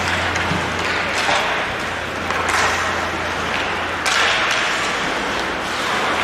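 Ice hockey play heard from the stands: skate blades hissing and scraping on the ice, swelling every second or so, over a steady low hum.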